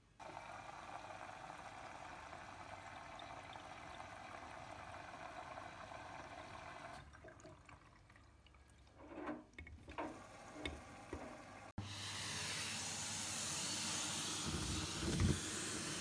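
Front-loading Bosch Serie 8 washing machine drawing in water with a steady hiss for about seven seconds, then its drum turning with a few soft sloshes and knocks. After a sudden change near the end, a vacuum cleaner runs louder with a steady rushing hiss as its nozzle sucks at debris.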